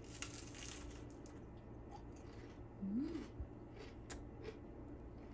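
A bite into a slice of crisp toast spread with cilantro pesto: a crunch at the start, then chewing with a few small crunches. A short hum of the voice comes about three seconds in.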